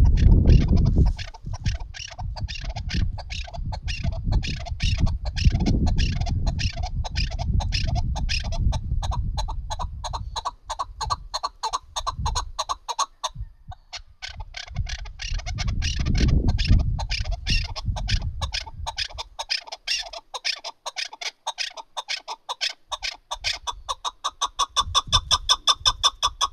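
Chukar partridge calling: a long run of rapid, repeated clucking notes at several a second, with a short pause about halfway and growing louder near the end. A low rumble sits underneath during parts of the first two-thirds.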